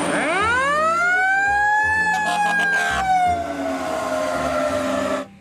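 Fire engine's mechanical siren winding up quickly to a high wail about two seconds in, then slowly winding down, over engine and road noise; it cuts off suddenly near the end.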